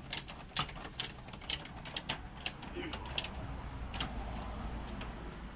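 Sharp metallic clicks from hand tools working on the engine bay, roughly two a second at uneven intervals, over a faint steady high-pitched whine.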